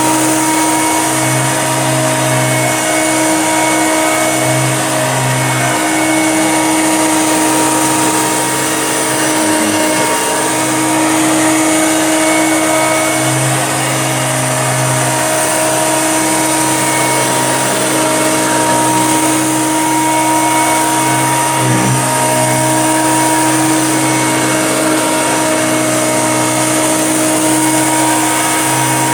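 Hoover Junior upright vacuum cleaner running steadily, with a constant motor whine, as it sucks up dog hair and dirt. A lower hum swells and fades every few seconds as the load on the machine changes.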